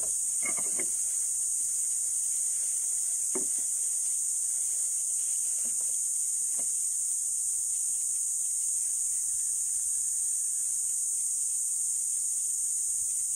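Steady, high-pitched chorus of insects, unchanging throughout. A few faint clicks and rustles of plastic bag and plastic parts being handled sound over it.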